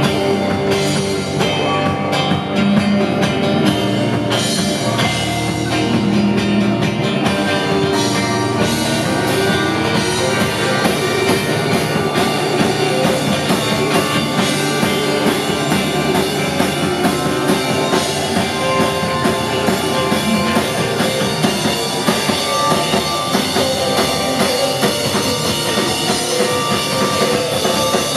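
Live band playing loud and steady without singing: banjo, upright bass and a drum kit.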